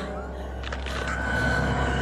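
Horror film score: a low, steady droning note, joined about a second in by a thin, high held tone.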